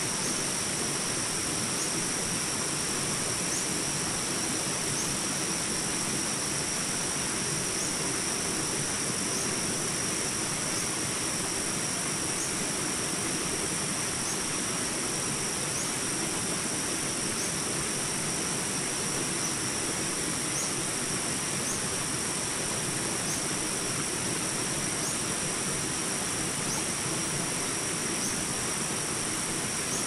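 Steady rush of water over rocks in a small stream's rapids, with a steady high-pitched tone above it and faint short chirps recurring about every second and a half.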